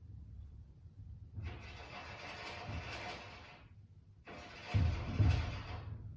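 Fireworks going off: two long crackling, hissing swells, the second carrying two low booms about half a second apart.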